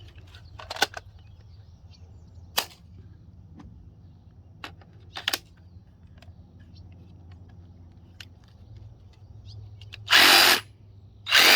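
Old DeWalt cordless power tool running on a Makita battery through an adapter: two short trigger pulls of about half a second each near the end, with a few sharp handling clicks before them.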